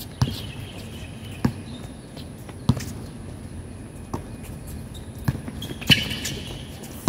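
Basketball dribbled on an outdoor hard court, one bounce roughly every second.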